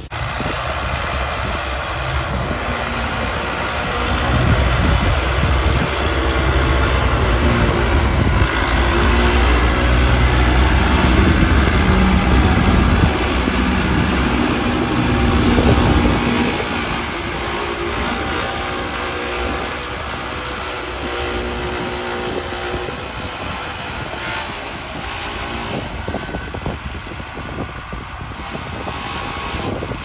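New Holland TT75 tractor's diesel engine running steadily under load as it pulls a three-disc plough through dry ground. It is loudest from about four to sixteen seconds in, then drops back a little and runs on evenly.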